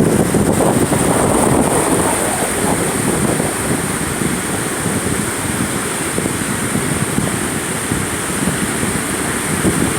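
Wind buffeting the microphone over the steady rush of rough, stormy ocean surf, a little louder in the first couple of seconds.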